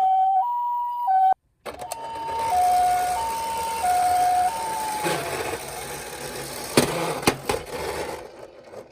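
Toy ambulance minicar's electronic two-tone hi-lo siren, switching between a higher and a lower note about every two-thirds of a second. It breaks off briefly about a second and a half in, starts again, then sags and winds down about five seconds in. A few sharp clicks follow near the end.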